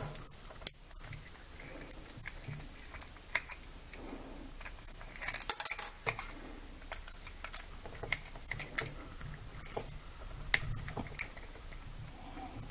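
Small precision screwdriver clicking and scraping against the screws and plastic housing of a small nightlight being unscrewed. It makes scattered light ticks, with a quick cluster of clicks about five seconds in.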